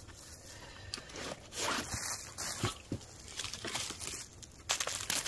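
Dry fallen leaves rustling and crunching underfoot as a person shifts around, with the rustle of camping gear being handled; a few louder crunches come in clusters.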